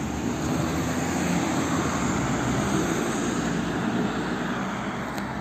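Low, steady rumble of a passing vehicle, growing louder through the middle and easing off near the end.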